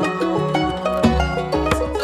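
Mellow instrumental music led by plucked banjo picking with other plucked strings, over a low bass pulse about once a second.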